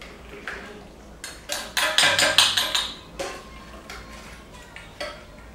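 A metal spoon clinking and scraping against the inside of a tin of powdered baby milk, with a quick run of clicks and knocks in the middle.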